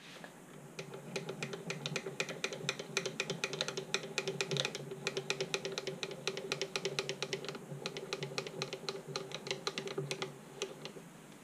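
Proxxon FF 230 mini mill's table being cranked along by its handwheel and leadscrew: a fast run of light mechanical clicks, many a second, starting about a second in and stopping shortly before the end.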